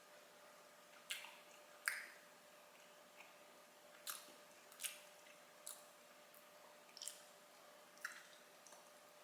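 Eating sounds from someone tasting chewy mochi pancakes: about eight short, sharp mouth and utensil clicks spaced irregularly, roughly one a second, over near silence.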